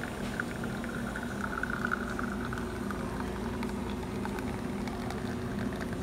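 Thermoplan Mastrena CS2 espresso machine brewing a shot: the pump runs with a steady hum while two thin streams of espresso trickle and sputter into a glass shot glass, the trickling most noticeable in the first half.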